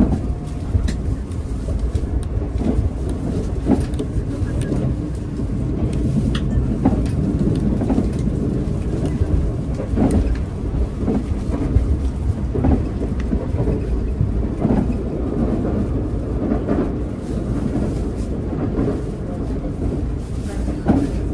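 Cabin noise of a JR 381 series tilting electric train running: a steady low rumble from the wheels on the rails, with scattered clicks.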